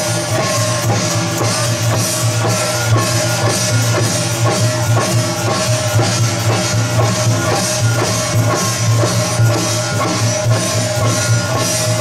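Taiwanese temple-procession percussion band: drums and cymbals struck in a fast, steady beat, with a wavering melody line held above it throughout.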